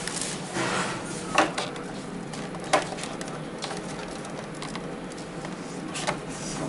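Clear plastic packaging tray and cards being handled: a steady rustle of plastic with a few sharp clicks and taps.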